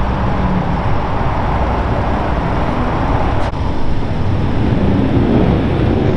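Police motorcycles and other motorcade vehicles passing, a steady rush of engine and tyre noise, with one engine rising in pitch near the end.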